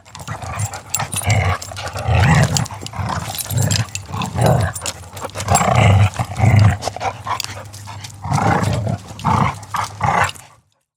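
A dog vocalizing in an irregular string of loud, low bursts for about ten seconds, cutting off suddenly near the end.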